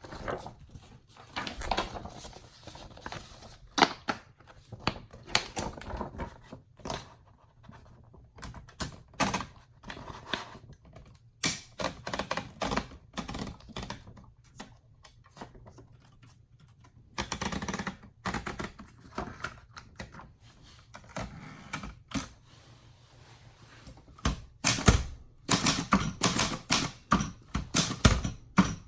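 1962 Royal Signet manual portable typewriter being typed on, its typebars clacking against the platen at an uneven pace with short pauses. Near the end the typing becomes quicker and louder.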